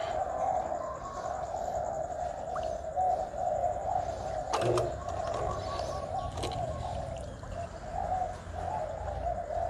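Birds calling steadily, many voices blending into one continuous low, fluttering sound, with a couple of faint clicks in the middle.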